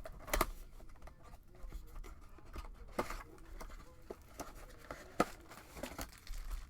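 Hands opening a trading card box and its packs: scattered clicks, short tearing strokes and crinkling of wrapper and cardboard.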